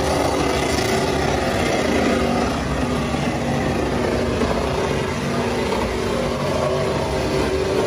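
Chevrolet Silverado pickup's engine held at steady high revs during a burnout, its rear tyres spinning and smoking on the pavement.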